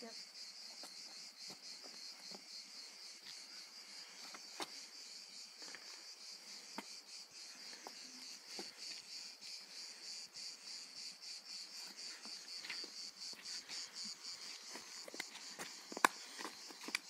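Insects chirring: a steady, finely pulsing high buzz. Scattered light knocks run through it, with one sharp knock near the end.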